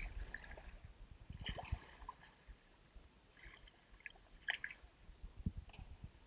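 Faint splashes and drips from a kayak paddle dipping into calm water, a few short strokes spread out with quiet between them.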